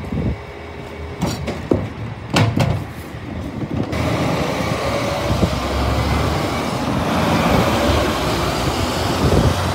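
A wheelie bin clatters and knocks a few times as it is handled at the back of a refuse truck while the truck's engine runs. About four seconds in, the sound changes to a 2021 DAF CF 6x2 refuse truck driving past, its diesel engine and tyres loud and steady, swelling as it passes close.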